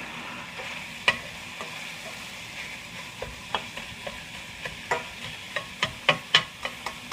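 Italian sausage sizzling as it browns in a stainless steel skillet, while a metal spatula pokes, taps and scrapes against the pan to break it into crumbles. The taps come more often from about halfway through.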